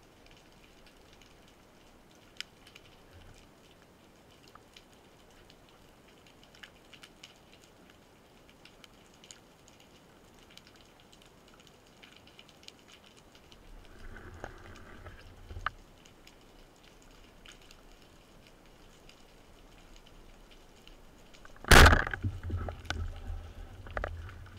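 Underwater, a faint hiss scattered with small sharp clicks, then near the end one loud sharp crack as a rubber-band speargun fires, followed by a few knocks and a low rumble of the shaft and line.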